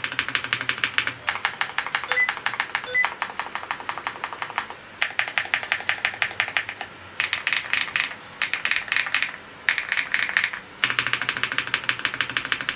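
Fast typing on an AULA F87 Pro V2 mechanical keyboard with linear switches and PBT Cherry-profile keycaps: rapid runs of key clicks broken by brief pauses.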